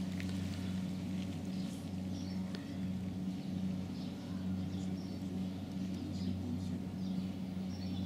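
Small birds chirping now and then, short high calls scattered through, over a constant low, steady hum.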